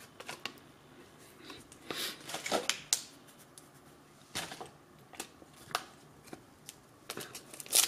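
Pokémon trading cards and foil booster packs being handled: scattered light taps and short rustles, with a busier cluster of rustling near the end as a pack is picked up off the stack.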